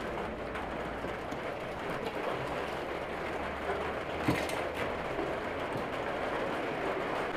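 Steady rushing background noise, with one sharp knock about four seconds in.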